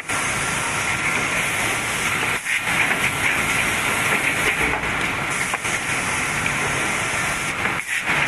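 Automatic rigid-box forming machine running: a steady mechanical noise with hiss, which dips briefly about two and a half seconds in and again near the end.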